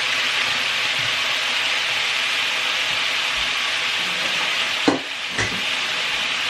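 Pork and baby potatoes sizzling steadily in a frying pan, with two sharp knocks about five seconds in, half a second apart.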